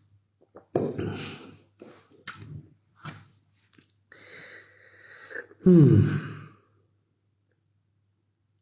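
A man's wordless vocal sounds close to the microphone: short breathy bursts and a few light clicks in the first half, then one loud voiced sound falling in pitch about six seconds in. A faint steady low hum runs underneath.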